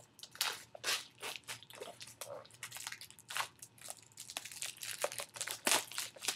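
Plastic shrink wrap being torn and peeled off a Steelbook disc case: irregular crinkling and crackling, with a louder crackle near the end.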